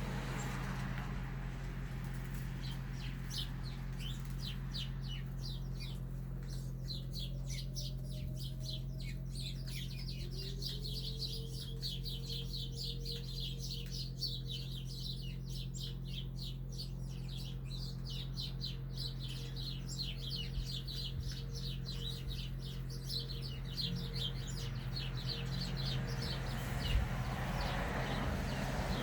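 A flock of small birds chirping rapidly and continuously. Underneath, a distant outdoor tornado warning siren faintly winds up a few seconds in and then holds a steady tone.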